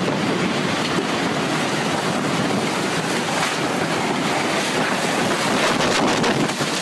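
Winds of a tornado of about 200 mph tearing into a house: a loud, unbroken rush of wind, with wind buffeting the microphone.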